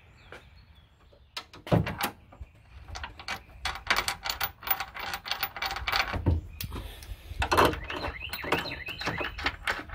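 Ratchet wrench clicking in quick runs as the fuel tank's mounting bolts are driven in and tightened, with a few metal knocks. Quiet for the first second or so, then a knock, and dense clicking with a short pause partway through.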